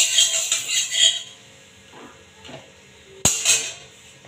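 Metal spatula scraping and clinking against a hot, empty metal kadai for about a second, then a few light knocks and one sharp metallic clank a little past three seconds in.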